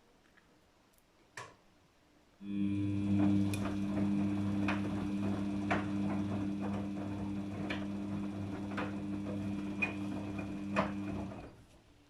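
Daewoo DWD-FT1013 washing machine's drum motor starting about two seconds in, turning the drum during the cotton wash with a steady hum and knocks about once a second, then stopping near the end.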